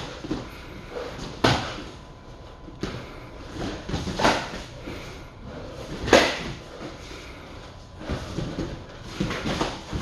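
Thuds and slaps of taekkyeon sparring: kicks and strikes landing on padded protective gear and feet stamping on a wooden floor. Several separate sharp hits, the loudest about six seconds in, with a quicker run of smaller hits near the end.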